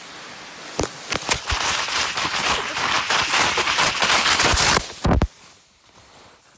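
Close, loud crackling and scraping as a hiker flounders through deep snow with the phone pressed against his body, snow crunching and clothing rubbing on the microphone. It ends about five seconds in with a short heavy thump, then goes quiet.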